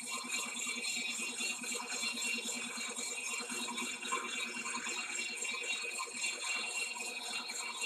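Large Monarch engine lathe taking a cut on a trommel trunnion wheel with a new indexable insert cutter under power feed: a steady machine hum under a continuous fast rattle.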